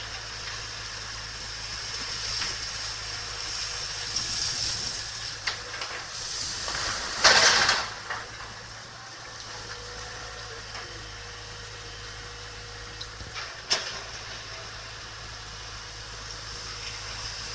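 Heavy construction machine running steadily, with a loud hiss lasting under a second about seven seconds in and a sharp knock about fourteen seconds in.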